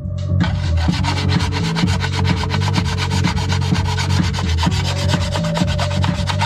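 Sanding stick rubbed quickly back and forth on the plastic fuselage of a 1/48 F-14A model kit, a fast run of rasping strokes over a steady low hum.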